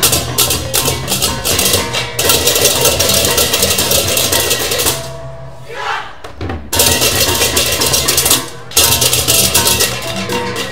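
Balinese gamelan baleganjur ensemble playing loudly: crashing hand cymbals over kendang drums and booming gongs in fast, driving patterns. The cymbals drop out for about a second and a half halfway through, then crash back in, with another short break about a second and a half later.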